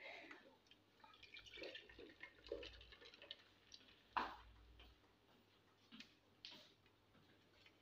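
Faint trickle of blended pomegranate juice poured from a blender jar through a steel mesh strainer into a plastic jug, with a few light knocks, the loudest about four seconds in.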